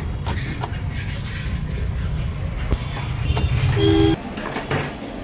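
Road traffic rumbling, with a short vehicle horn toot about four seconds in; the low rumble drops away right after, with a few scattered clicks.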